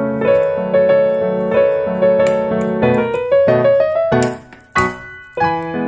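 Background piano music: held, overlapping notes at first, then short detached notes with brief gaps from about four seconds in.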